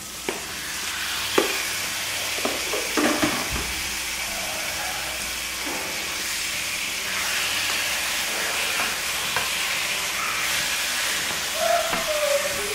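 Diced raw chicken sizzling in a hot frying pan as it goes in: the hiss builds over the first second, then holds steady while it is stirred with a wooden spoon. A few knocks in the first three seconds come from a metal spoon scraping the chicken out of a plastic container.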